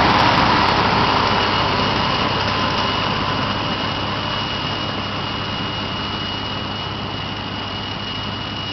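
Zetor tractor's engine running steadily under load while it drives a rotary hay tedder, with a steady high whine over the engine hum. The sound fades gradually as the tractor moves away.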